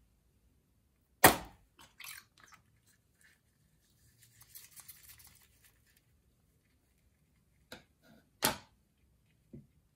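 Scissors cutting open a slime-filled stress ball: one loud sharp snip about a second in and a few lighter clicks. Then soft wet squishing and crackling as glitter slime spills out and is squeezed from the ball's skin, with more sharp clicks near the end.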